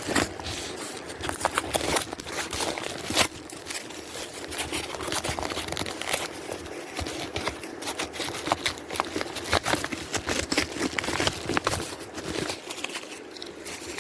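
Packaging being handled and unwrapped by hand: irregular crinkling, rustling and scraping with scattered small clicks as a mailed package is opened.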